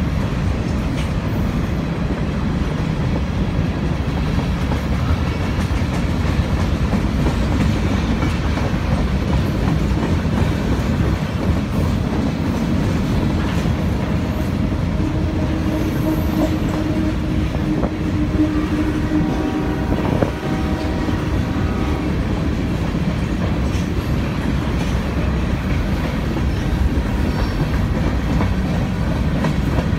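Freight train cars, boxcars and covered hoppers, rolling past: a steady rumble of steel wheels on rail with wheels clacking over rail joints, and a faint steady whine for several seconds in the middle.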